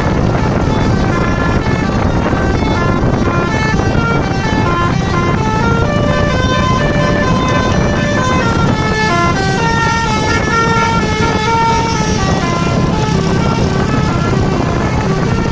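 Bus's Basuri V3 multi-tone 'telolet' horn playing a long running melody of quick notes that step up and down in pitch without a break, over a steady low rumble.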